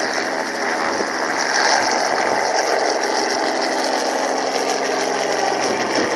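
Small Robinson piston helicopter lifting off and climbing away: steady engine and rotor noise that gets a little louder about a second and a half in.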